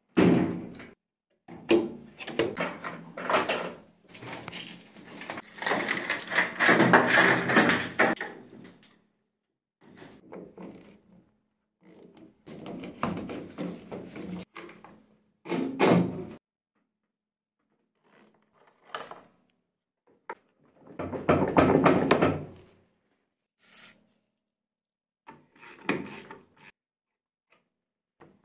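Plastic housing parts of a Zanussi washing machine being taken apart by hand: clunks, rattles and scraping in separate bursts with silent gaps between them. The longest and loudest burst runs for about three seconds, a third of the way in.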